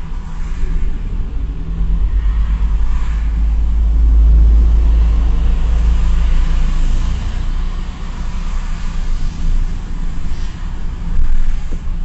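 Car running in slow traffic: a steady low engine and road rumble that grows louder about four seconds in and eases off again a few seconds later.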